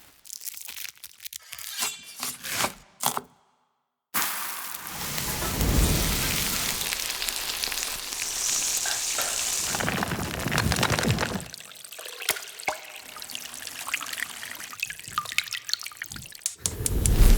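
Kitchen cooking sound effects in sequence: a few sharp taps and clicks, a moment of dead silence, then several seconds of steady hissing of liquid and food in a pan, followed by lighter clicks and a louder burst near the end.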